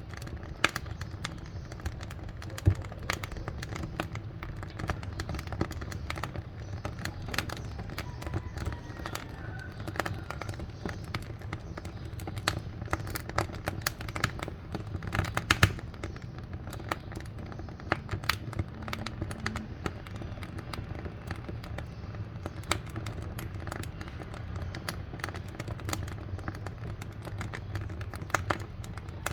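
Wood fire burning in a wood-fired cooking stove, crackling and popping with many irregular sharp snaps over a steady low rumble of the flames.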